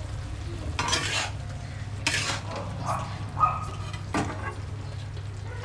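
A flat metal spatula stirring and scraping sliced vegetables in an iron kadhai, with irregular scrapes and knocks against the pan and one sharp knock about four seconds in, over the sizzle of the frying.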